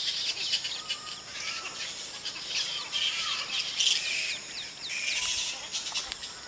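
Roosting colony of flying foxes (large fruit bats) calling: many short, high-pitched squeaks and chirps overlapping, some sliding down in pitch. A steady high-pitched whine runs underneath.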